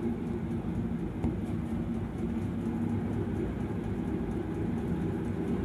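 Steady low background hum and rumble, unchanging throughout.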